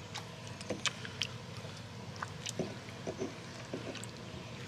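Lava-stone pestle crushing tomatillos and tomatoes in a molcajete of juicy salsa, making scattered wet squishes and light stone knocks at an uneven pace.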